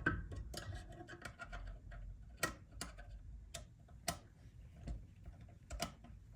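Irregular small sharp clicks, about one or two a second, from a driver turning the T15 Torx screws of a multitool to tighten them.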